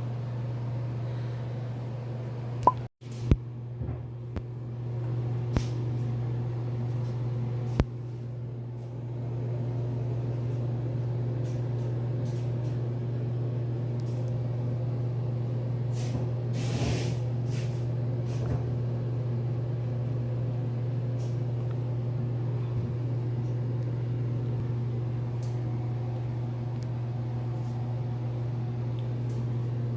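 Steady low drone inside a moving car, with a few sharp clicks a few seconds in and a brief hiss about 17 seconds in.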